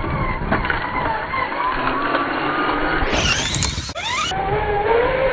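Traxxas Summit RC truck's electric motor whining, with tyre and gravel noise, slowed down and deep in pitch. About three seconds in, the whine sweeps steeply upward in pitch, then cuts off abruptly just after four seconds and settles back to a low, wavering whine.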